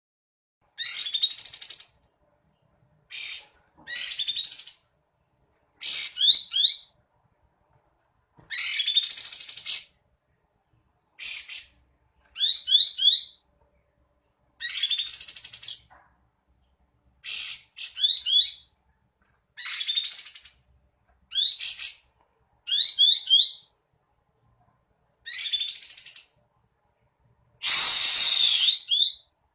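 Kapas tembak bulbul singing repeatedly: short, quick, sliding whistled phrases about a second long, given roughly every two seconds, the last one near the end the longest and loudest.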